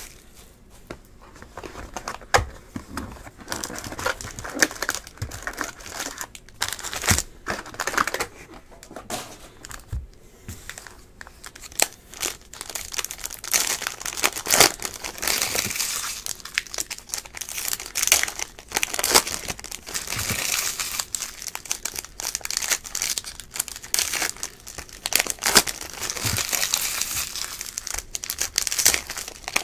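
Foil wrappers of Panini Prizm baseball card packs crinkling and crackling in the hands as packs are opened and cards handled, with irregular crackles that grow busier from about halfway on.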